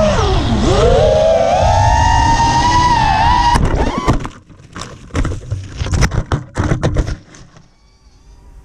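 Racing quadcopter's brushless motors (Lumenier RX2206 2350kv) and 5-inch propellers whining at high throttle. The pitch dips sharply about half a second in and climbs back. Past the three-second mark the quad crashes, and the whine breaks off into a run of sharp knocks and crackles as it tumbles through branches and comes to rest on the ground.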